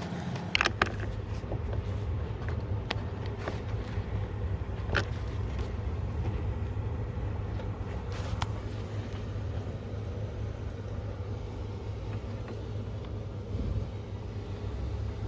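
Steady low rumble of a vehicle engine idling, starting abruptly at the very beginning, with a few scattered clicks and knocks of hand work over it.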